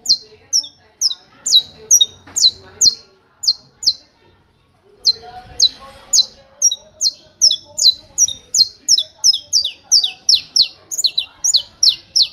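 Saffron finch (canário-da-terra) singing the repeated 'martelo' (hammer) song: a series of short, sharp, high notes, each falling in pitch. They come about two a second at first, then after a brief pause about four seconds in they quicken to about four a second.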